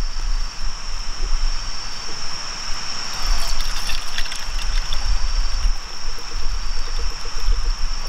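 Water running from a water jug's tap into a cup, a steady trickling rush that is loudest a few seconds in.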